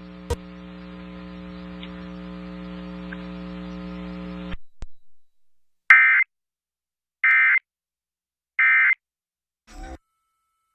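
A steady electrical buzzing hum on the broadcast audio, cutting off sharply about four and a half seconds in, then three short, identical bursts of Emergency Alert System data tones about a second and a half apart: the End of Message (EOM) signal that closes the monthly test.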